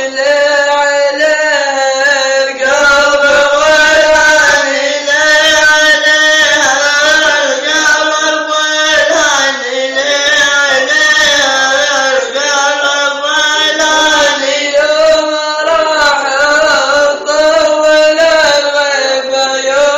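A male voice chanting a Gulf Bedouin sung poem (shela) unaccompanied, in long, slowly wavering held notes.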